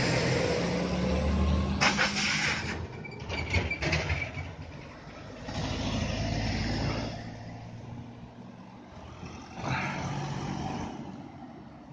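Heavy-haulage truck and its multi-axle low-loader trailer carrying a large steel tank rolling past slowly, the diesel engine droning as it goes by, with a run of knocks and rattles from the trailer a few seconds in. Then two smaller vehicles drive past one after the other, the second about four seconds after the first.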